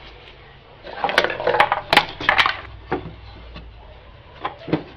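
Wooden boards being handled and set down on a table saw: a quick run of clattering knocks about a second in, then a few single knocks, two of them near the end.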